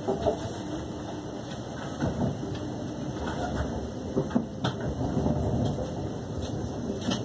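Running noise of a Class 350 electric multiple unit heard from inside the carriage: a steady low rumble of the train in motion, with a few sharp knocks along the way.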